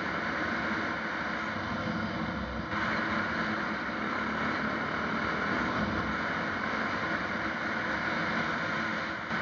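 Steady engine and road noise of a vehicle driving along a road, a continuous hiss with a low hum that gets a little louder about three seconds in.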